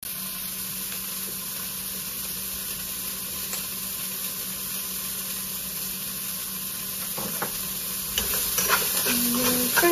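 Steady hiss with a low hum. Near the end a plastic bag crinkles as it is handled.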